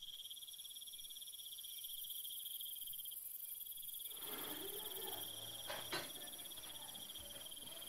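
Crickets chirping in a steady, fast high trill, faint, with a light click about six seconds in.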